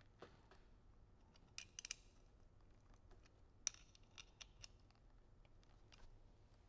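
Faint metallic clicks and scrapes of a coin turning the flat-head screws under a CAMETV 7800 gimbal's quick-release plate as they are tightened. A quick cluster of clicks comes about two seconds in, and the sharpest click near the middle.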